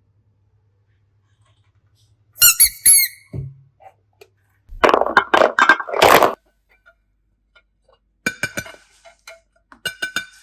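Slime being squeezed and poked by hand. Two short squeaks come about two and a half seconds in, a burst of wet crackling squelches follows around five to six seconds, and clusters of clicky squeaks come near the end.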